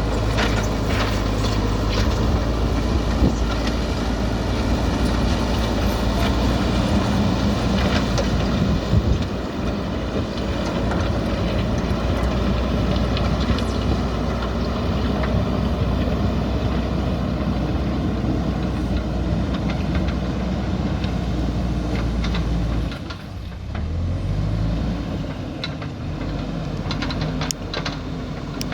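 JCB backhoe loader's diesel engine running steadily under working load, with scattered clanks. The engine drops off briefly about three-quarters of the way through, then picks up again.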